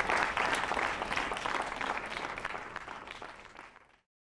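Audience applause: many hands clapping, fading out and cut off to silence near the end.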